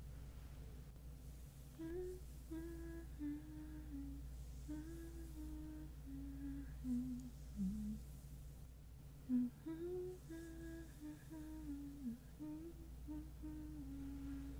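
A woman humming a slow tune with held notes and small glides, gently, as a lullaby to hum the listener to sleep.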